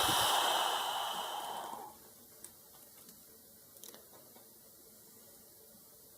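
Soldering iron tip sizzling and crackling in flux on a phone circuit board, stopping about two seconds in, followed by a couple of faint small clicks.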